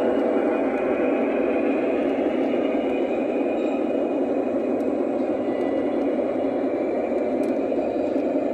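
Lionel O-gauge model train rolling steadily past, a continuous rumble of its wheels and running gear on the track.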